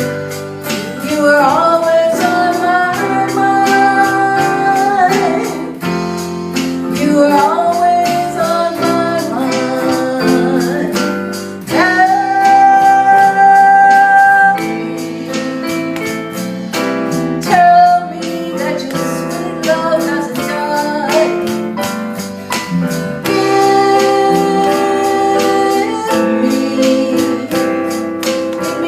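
Band music: a female voice singing long held, sliding notes over bass guitar, keyboard, drums and strummed rhythm guitar, with a steady beat.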